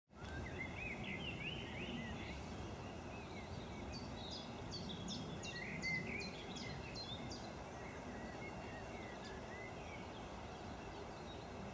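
Small birds singing over a steady outdoor background noise: warbling chirps in the first couple of seconds, then a quick run of about ten high, short, falling notes from about four to seven seconds in.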